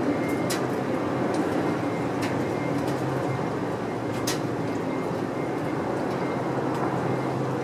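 A steady low mechanical hum and rumble, with a few faint sharp ticks about half a second, two seconds and four seconds in.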